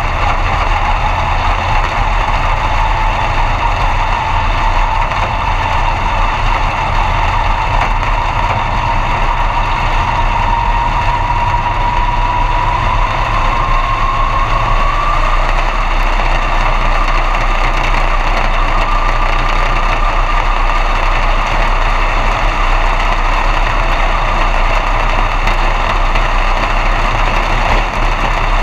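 B-Mod dirt track race car's V8 engine heard from inside the cockpit, running steadily at low revs. Its note rises slowly through the first half, then holds.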